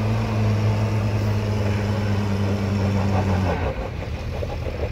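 UAZ off-roader's engine running steadily under load as it climbs a snowy slope. About three and a half seconds in, the engine note drops abruptly and falls back toward a lower, quieter running note.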